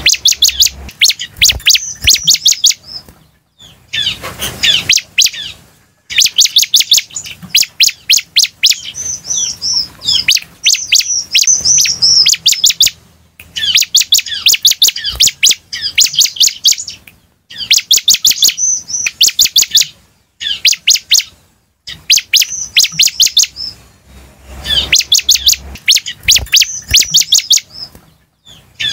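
Bar-winged prinia (ciblek) singing loudly: rapid runs of sharp ticking chirps mixed with high whistled notes, in phrases of two to four seconds with short pauses between them.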